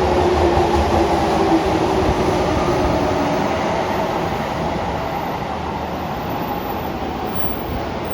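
Tokyo Metro 05 series subway train running through a tunnel, heard from inside the car: dense rumbling running noise with a faint steady whine from its Toshiba IGBT-VVVF inverter and permanent-magnet synchronous traction motors that fades out about three seconds in, the noise easing slowly after.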